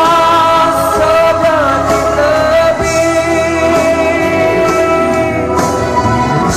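A young man singing one long held note into a microphone over backing music, both played through a loudspeaker; the note bends briefly about two seconds in and stops shortly before the end.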